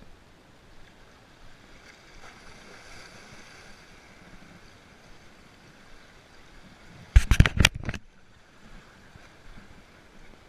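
Faint, steady wash of sea water against shore rocks. About seven seconds in comes a loud, rattling cluster of knocks lasting under a second.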